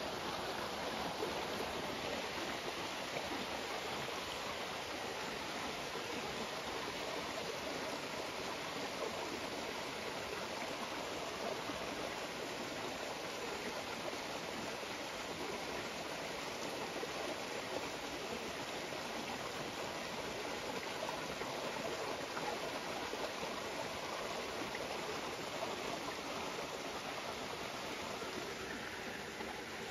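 Small rocky stream and cascade, water rushing steadily over stones.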